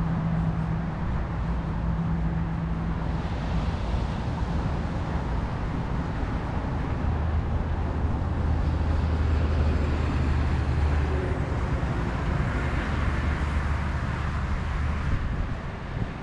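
Road traffic: low engine hum of motor vehicles on the coastal road, one for the first few seconds and a deeper one from about seven seconds in, over a steady wash of surf and wind noise.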